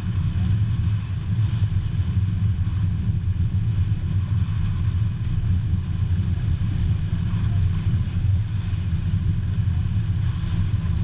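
The twin turbocharged six-cylinder Continental engines of a Cessna 303 Crusader running at low power during the ground roll on a dirt runway, a steady low rumble.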